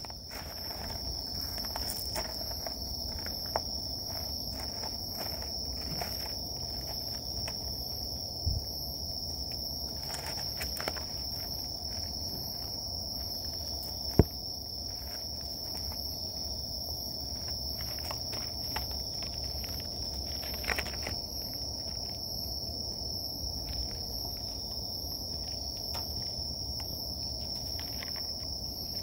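Crickets chirring in one unbroken high trill, with a fainter, higher insect call pulsing above it. A few sharp taps break in, the loudest about halfway through.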